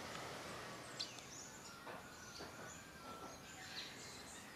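Faint outdoor background noise with a few short, high bird chirps scattered through it.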